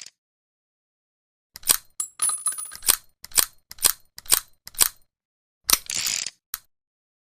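A small, cheap Saturday-night-special revolver being handled: a run of about ten sharp metallic clicks, roughly three a second, some with a brief high ring. Then, near the end, a click, a short rattle and one more click, just before the gun is fired.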